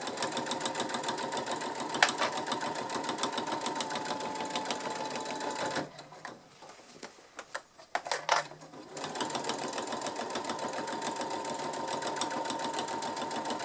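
Domestic electric sewing machine stitching a seam: a fast, even run of needle strokes over a steady motor whine. About six seconds in it stops for roughly three seconds, with a couple of clicks, then runs on again.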